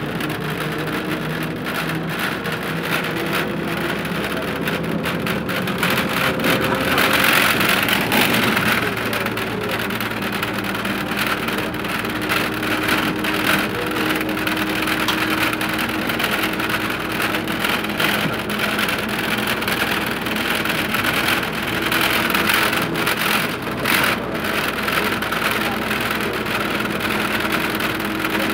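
Ikarus 280 articulated bus's diesel engine and running gear heard from inside the bus as it drives along, a steady hum with road noise, growing louder about seven seconds in.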